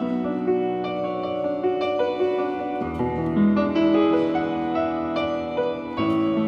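Instrumental piano introduction to a song: slow held chords changing about once a second, with a lower bass part coming in about three seconds in.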